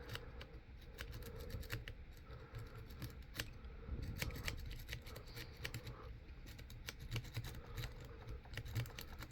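Quad rake pick being scrubbed in and out of a padlock's keyway under tension, with faint, irregular clicking of metal on the pins. The lock does not open.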